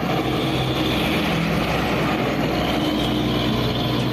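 Diesel engine of a Hino concrete mixer truck running steadily as the truck drives along the road toward the camera.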